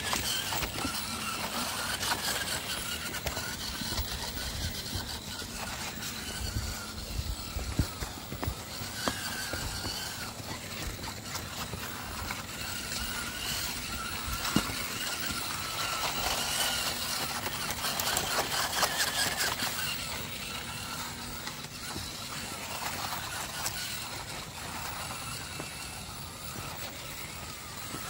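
Electric drive of a motor-on-axle RC rock crawler, its Hobbywing Fusion Pro brushless motors and gears whining and wavering in pitch as it crawls over stone steps. A few sharp knocks as the tyres and chassis hit the stone edges.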